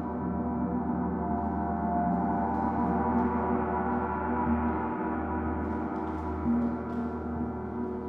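Sound-bath gong ringing on as a sustained wash of many overlapping tones, swelling slightly now and then.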